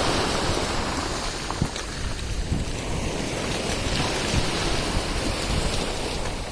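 Sea surf washing onto the shore, a wave swelling near the start and then a steady wash, with wind buffeting the microphone.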